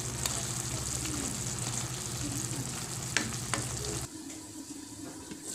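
Squash and bitter melon sizzling in a pan while a wooden spatula stirs them, with a few sharp clicks of the spatula against the pan. About four seconds in, the low hum underneath cuts out and the sound gets quieter.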